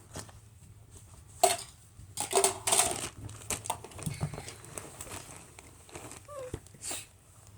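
Balloons being handled: scattered rubbery crinkling and rubbing noises at irregular moments, over a low steady hum.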